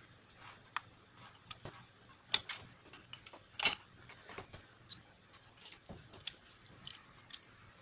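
Irregular light clicks and taps of a metal pick, a screwdriver and small parts against a plastic drill housing and the tabletop, with two louder knocks about two and a half and three and a half seconds in.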